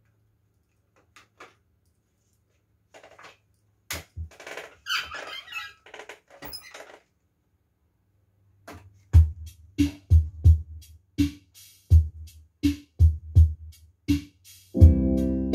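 Electronic console organ being set up and started: faint clicks and rustling over a low hum as its panel buttons are pressed, then about nine seconds in its built-in rhythm unit starts a steady drum-machine beat, about one and a half beats a second. Near the end sustained organ chords come in over the beat.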